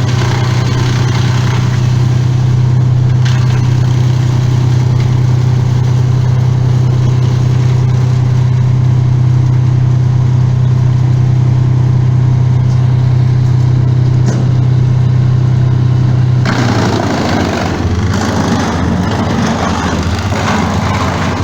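Chainsaw engine running at a steady high speed, then its pitch drops and a rough, noisier sound takes over about three-quarters of the way through, as the saw loads up in a cut.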